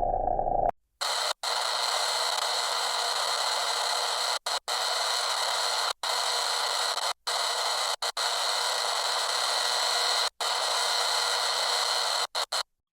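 A steady hissing noise, broken by several brief drops to silence. Under a second in, a lower-pitched sound ends just before it.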